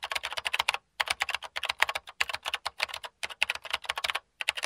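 Typing sound effect: rapid computer-keyboard key clicks in quick runs, broken by a few brief pauses.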